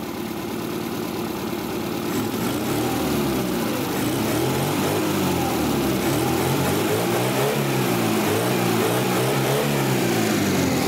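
Carbureted four-cylinder engine of a classic Lada running, getting gradually louder over the first few seconds, its note wavering a little in the second half. It has just been filled with fresh oil with the engine running and is running well.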